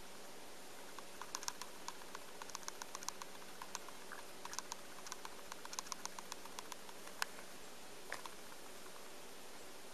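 Clusters of faint, quick little clicks and ticks, in irregular runs, over a low steady hum. One sharper click stands out about seven seconds in.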